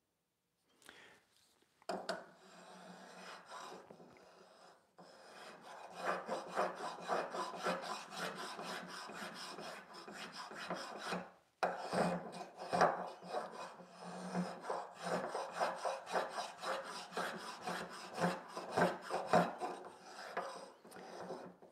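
Veritas flat-bottom spokeshave shaving a curved wooden workpiece in repeated strokes, the blade chattering as it cuts; the shaving stops briefly about five seconds in and again about halfway. The chatter is one he guesses comes from too much blade sticking out.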